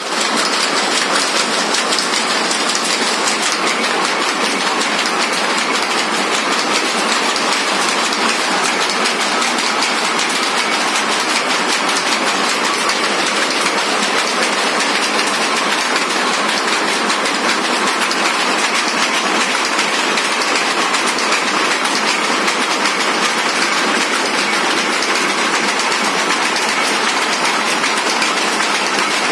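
Several power looms running together, making a loud, steady, fast mechanical clatter.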